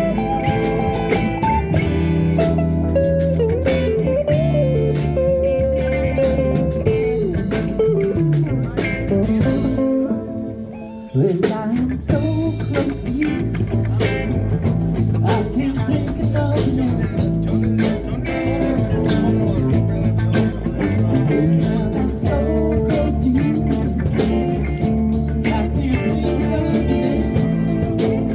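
Live blues band playing: electric guitar with bent, sliding notes over bass and drums. About ten seconds in the band stops for a moment, then comes back in together on a hit.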